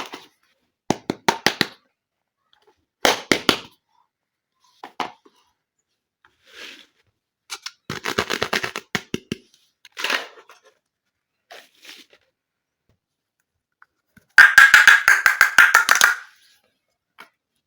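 Small plastic toy kitchen pieces being handled, with quick runs of clicks, taps and rattles in separate bursts. The longest and loudest is a dense clattering that lasts about two seconds near the end.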